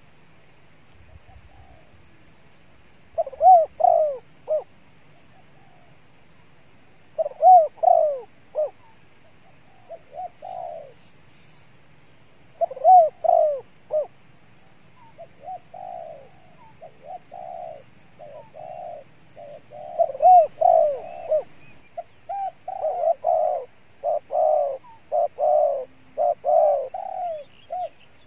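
Spotted dove cooing in short repeated phrases of a few soft, curved coos. The first phrases come several seconds apart; about halfway through the phrases come almost without pause.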